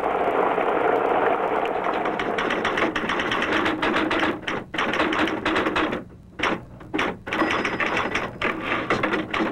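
Typewriter keys clacking in rapid runs, stopping briefly a few times.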